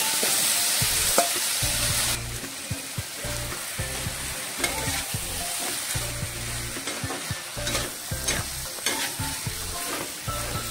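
Marinated chicken pieces sizzling loudly as they hit a hot iron wok with no oil added. The loud hiss drops off about two seconds in. Then a metal spatula stirs and scrapes the pieces around the pan over a softer sizzle, with scattered scraping clicks.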